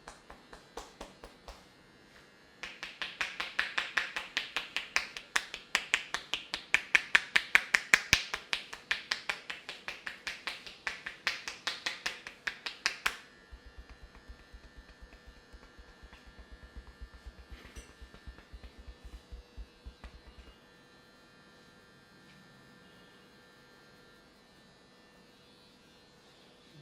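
Rapid, regular clicking, several sharp clicks a second. It is loudest in the first half, carries on more quietly, then stops, leaving a faint hum.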